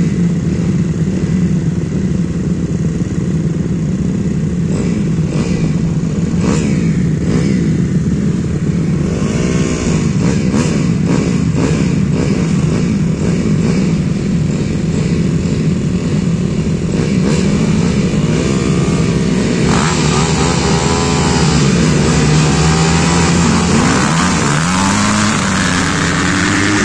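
Several dirt-bike engines running together on a start line, blipped and revved up and down. The revving gets louder and higher about two-thirds of the way through, and near the end the engines climb in pitch as the bikes pull away.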